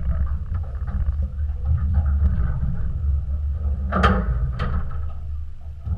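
Steady deep rumble of wind and boat motion on a small open fishing boat at sea, with two sharp knocks about four seconds in.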